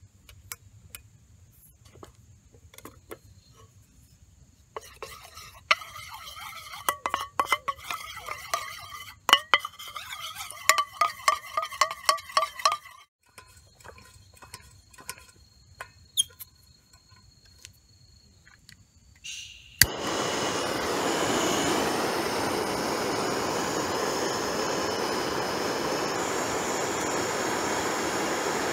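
A metal spoon clinking and scraping in a small aluminium pot as sauce is stirred, from about five to thirteen seconds in. Just before twenty seconds a click, then a handheld gas torch hisses steadily as it preheats a Coleman Exponent 550B liquid-fuel stove.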